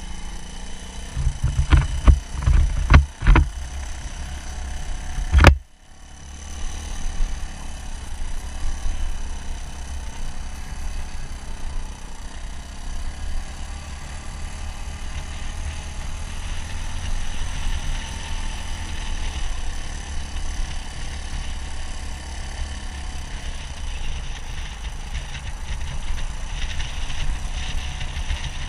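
Suzuki DR200 dual-sport motorcycle's single-cylinder engine running while riding, under a heavy low rumble. Several knocks come in the first few seconds, and a sharp crack about five seconds in.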